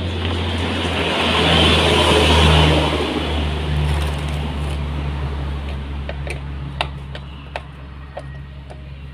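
An electric motor hums steadily. A rushing noise swells and fades over the first few seconds, then scattered sharp clicks and ticks follow in the second half.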